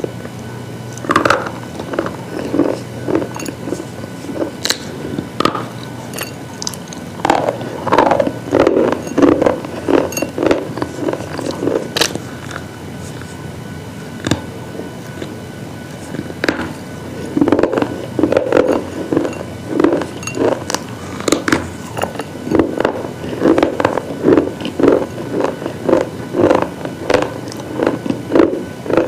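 Brittle slate pieces crunching and crumbling in quick, uneven runs of crisp cracks, with a short lull about halfway through, over a low steady hum.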